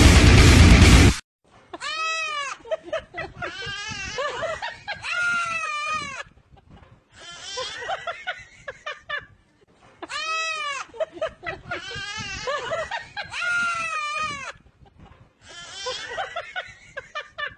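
A young goat bleating and a baby shrieking back at it, trading calls in repeated bouts with short lulls between. Loud music cuts off about a second in.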